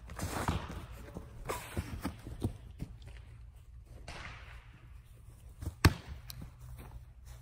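Feet scuffing and thudding on artificial turf as a football long snapper blocks a rusher right after the snap, with several short thuds in the first three seconds. A single sharp smack stands out just before six seconds in.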